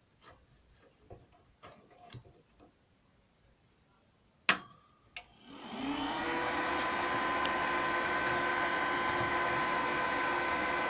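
Repaired welding inverter switched on: two sharp clicks about a second apart, then its cooling fan spins up and settles into a steady whir with a hum of several steady tones. It powers up and runs normally.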